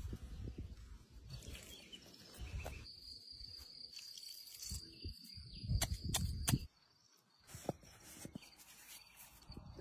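Quiet open-air ambience with uneven low rumbling and soft handling sounds of food being prepared in a wooden bowl. A steady high-pitched tone runs for a few seconds midway, a few sharp clicks come about six seconds in, and the sound drops off suddenly just before seven seconds.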